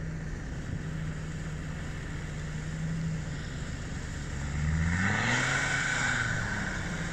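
Land Rover Discovery Td5's five-cylinder turbo-diesel engine pulling steadily through deep mud. About five seconds in, the revs rise and then fall back, with a louder rush of noise at the peak.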